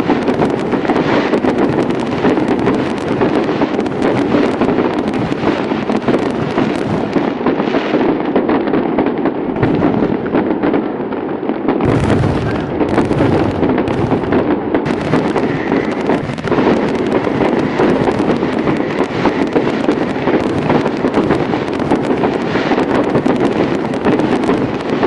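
A fireworks display going off as a dense, unbroken barrage of bangs and crackles. It dulls for a few seconds near the middle, then a deeper bang comes in.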